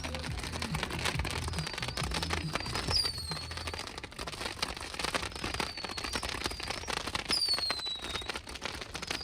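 Fireworks crackling, a dense run of irregular pops. A high falling chirp repeats every two seconds or so. Music with a steady low bass carries on for the first two and a half seconds, then stops.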